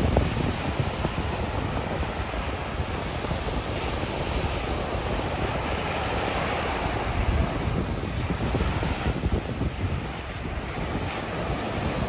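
Small surf breaking and washing up a sandy beach in a steady hiss, fuller for a few seconds around the middle as a wave runs in. Wind buffets the microphone in a low, fluttering rumble underneath.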